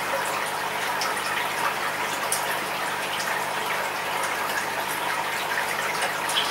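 Aquarium water circulating: a steady splashing trickle with small scattered ticks and a faint low hum underneath.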